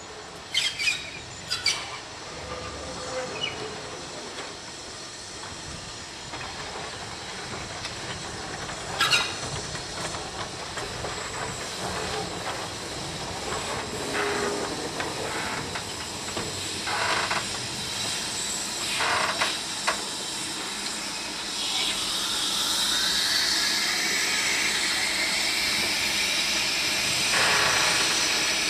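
Ivatt Class 2MT 2-6-2T tank steam locomotive hissing steam, with a few sharp metallic knocks in the first ten seconds. The hiss grows louder about three quarters of the way through, with a high tone rising in pitch over it.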